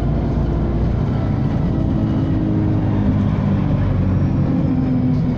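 Bus running, with a steady low engine hum and held groaning tones that shift in pitch every second or two; these are the weird groaning sounds this bus is known to make.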